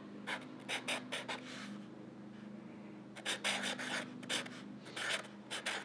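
Fine-point Sharpie felt-tip marker writing on lined notebook paper: short scratchy pen strokes in two clusters, with a pause of about a second and a half between them.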